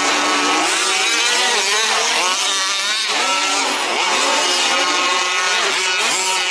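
Several 1/5-scale RC off-road trucks' small two-stroke petrol engines revving up and down together as they race, their pitches rising and falling and overlapping.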